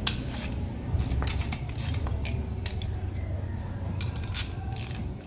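Scattered metal clinks and clatter as engine parts and hand tools are handled, likely the bearing caps being fitted back on the engine block, over a steady low hum.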